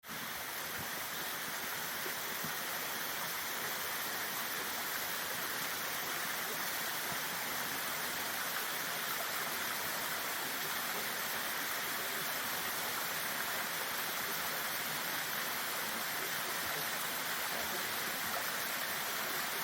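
Steady rush of a waterfall: an even hiss of falling water that cuts in abruptly and holds level.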